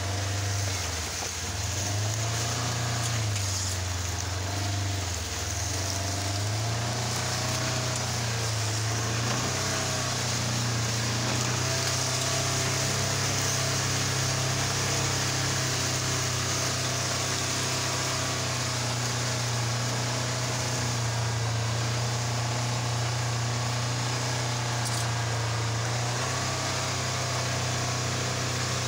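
Off-road buggy's engine running under way, a steady hum whose pitch shifts up and down a few times in the first several seconds and then holds level.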